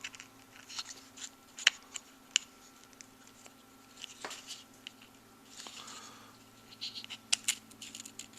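Light clicks, taps and short scrapes of small RC transmission parts being handled: a tiny bearing being fitted into one half of a plastic transmission case. These come irregularly over a faint steady hum.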